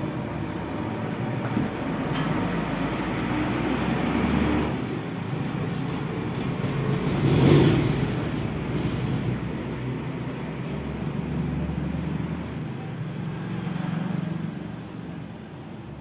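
Road traffic: a steady low rumble of passing vehicles, with one vehicle growing louder to a peak about halfway through and then fading away.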